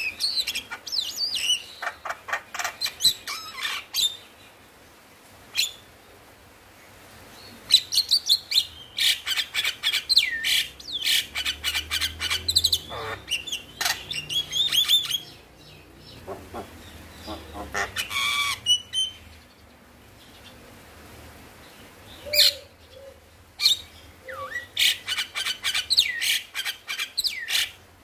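Male Javan myna singing: bursts of rapid chattering notes and gliding whistles, with short pauses of a few seconds between bursts.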